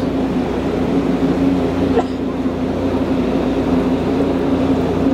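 Whale-watching tour boat's engine running with a steady low drone.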